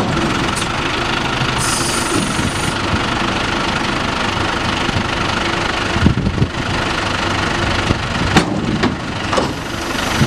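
Tractor engine running at a steady speed, with a short high hiss about two seconds in and a few sharp clanks and knocks in the second half.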